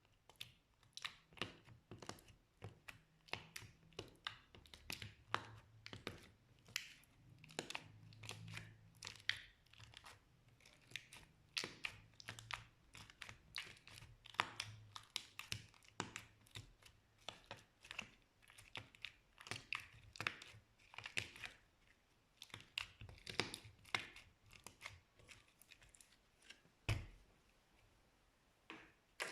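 Slime being worked by hand, making a dense run of irregular sticky pops and crackles, several a second, with a single duller thud near the end.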